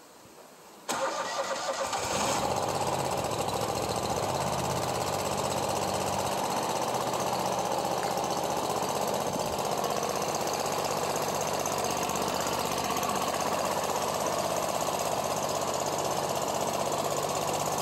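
Water-flooded zero-turn mower OHV engine cranking on its starter about a second in and catching almost at once, then running steadily with no air filter fitted. It is burning off water that had leaked into the muffler.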